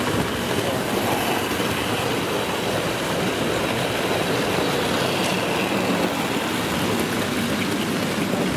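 OO gauge model train, a streamlined model steam locomotive with coaches, running along the track close by, over the steady hubbub of a crowded exhibition hall.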